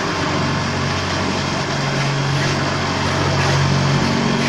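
Paver-block vibrator table running with a steady, even mechanical hum under moulds of wet concrete.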